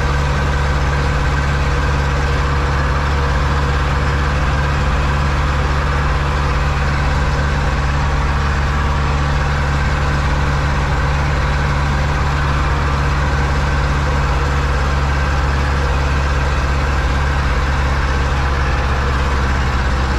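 Zetor 7245 tractor's diesel engine running steadily under load while pulling a trailer along the road, heard from inside the cab as an even drone.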